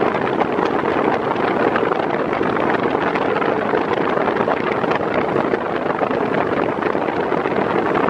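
40 cm Arno Xtreme Force Breeze VB40 fan running at its maximum speed setting, a steady rush of air blowing at about 40 km/h.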